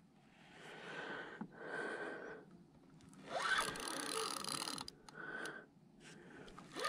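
Spinning reel being cranked in short spurts, its gears whirring faintly with a few clicks, as line is reeled in against a hooked catfish.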